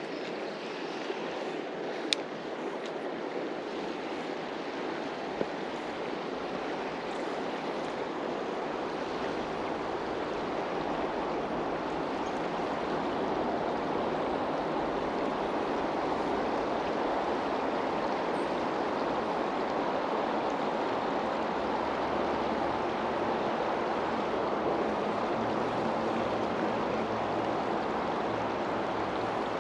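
River water rushing steadily, growing louder about a third of the way in, with a couple of small clicks early on.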